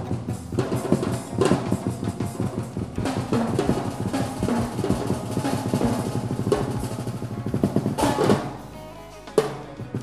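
Acoustic drum kit played live with rapid strokes across snare, toms and bass drum. The playing drops off briefly near the end, followed by one sharp hit.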